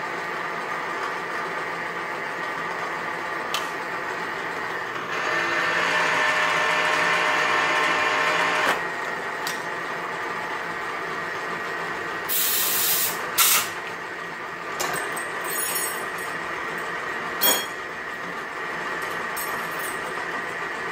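A lathe runs steadily with a humming, whining drone, a louder rush of noise for about three seconds near the middle. Short hissing bursts and a few sharp metal clicks come as the operator works at the Hall collet chuck.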